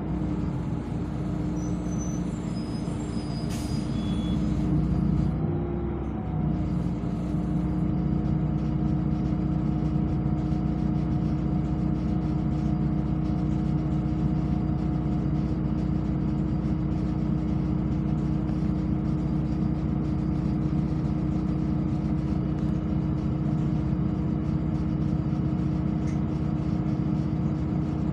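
City bus running, heard from inside the passenger cabin: a steady drone of engine, drivetrain and road noise with a constant hum tone. There is a brief rise in pitch about five seconds in.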